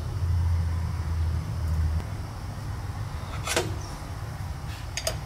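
Workbench handling sounds while a shock absorber's shaft threads are cleaned: a low hum for the first two seconds, then a sharp click about midway and a quick double click near the end, from tools and parts being handled.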